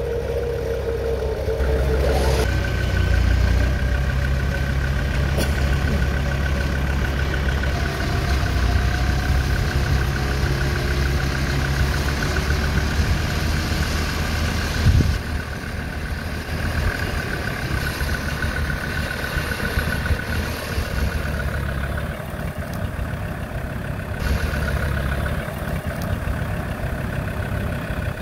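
Land Rover Defender's engine running under load as the vehicle is pulled up out of a ditch on a recovery strap. A steady high whine sits over the low engine rumble for most of the pull, with a single sharp knock about fifteen seconds in.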